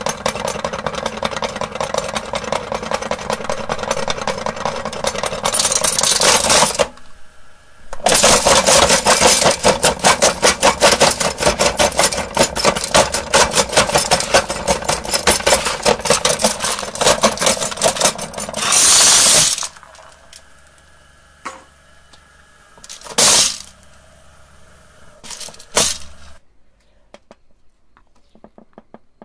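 Belt-driven meat grinder running with marbles inside: a loud, fast clattering and rattling of the marbles against the auger and steel housing. It drops off briefly about seven seconds in and stops at about twenty seconds, leaving a few separate knocks.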